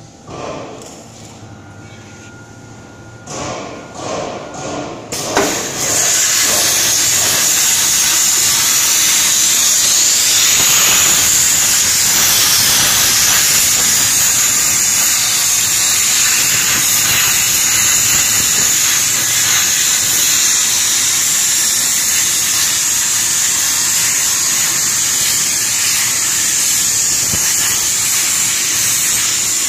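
Kasry CNC table plasma cutter: about five seconds in, the plasma torch fires with a sudden loud onset, then runs as a loud, steady hiss with a high whistle in it while it cuts thin sheet metal.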